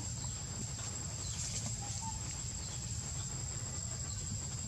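Outdoor forest ambience: a steady high-pitched drone over a low rumble, with a few faint, short animal calls about two and four seconds in.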